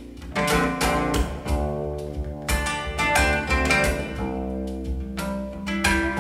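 Instrumental passage of an indie-folk song, with plucked guitar notes over a bass line and no vocals; notes start every half second or so.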